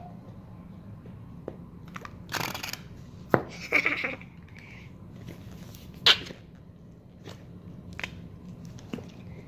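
Flarp noise putty being squeezed and squished, giving a string of short squishing noises and sharp pops at irregular intervals, the sharpest about a third of the way in and again past the middle.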